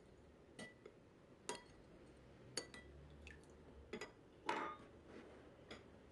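A spoon clinking lightly against a bowl while grape molasses and water are stirred together, in about ten irregular, faint clinks with one louder, longer clink about four and a half seconds in.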